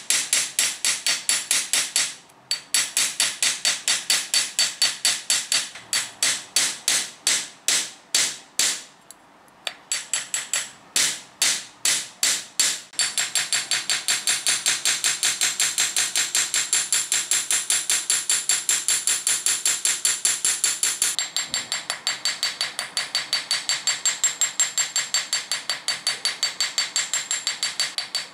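Hammer striking steel wire on a small steel anvil, several ringing metallic blows a second, cold-forging to work-harden the wire. The blows pause briefly about two and nine seconds in, then quicken into an unbroken run from about thirteen seconds in.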